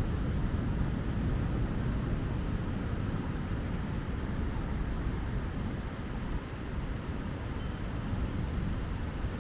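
Steady low rumble of wind buffeting a small handheld camera's microphone, over the wash of surf on a beach.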